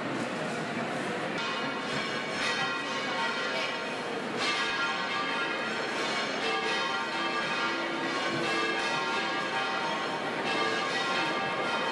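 Church bells ringing, with fresh strikes about a second and a half in, at about four and a half seconds and near the end, each tone ringing on and overlapping the last.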